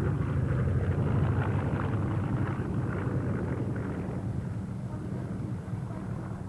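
B-25 Mitchell bomber's twin Wright R-2600 radial engines droning as it flies by, the sound fading steadily as the plane moves away.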